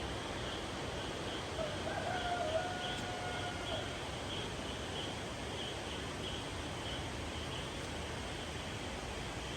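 A rooster crowing once, a held call of about two seconds starting around a second and a half in, over a steady background hiss with faint, evenly repeated high chirps.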